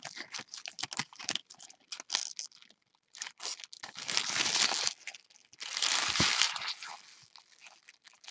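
Plastic and foil card-pack wrapping being crinkled and handled, with many small crackles and two longer tearing rips about four and six seconds in.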